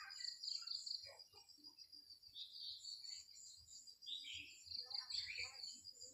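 Faint, steady high shrill of insects, with short chirping calls of red-whiskered bulbuls about two and a half seconds in and again around four to five seconds in.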